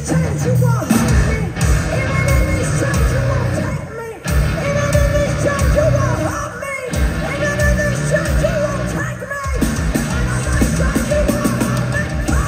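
Live metal band playing loud, with a woman's voice singing and yelling over guitar and drums. The band stops short for a moment about every two and a half seconds.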